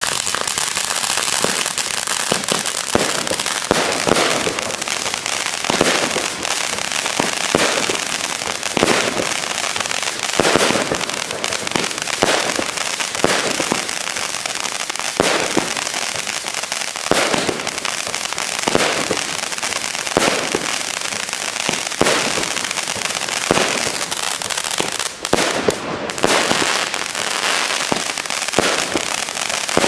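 Pyro Group Europe 'Cake E' 34-shot firework battery (cake) firing. Sharp launch bangs come about once a second over a continuous dense hiss and crackle.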